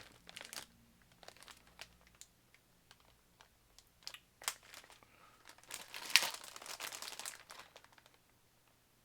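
A cookie package crinkling as it is handled, in scattered crackles, with a denser, louder stretch of crinkling about six seconds in.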